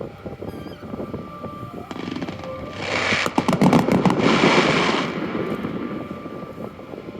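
Firecrackers going off in a rapid crackling burst that starts about three seconds in and lasts about two seconds, over a background of crowd and festival noise.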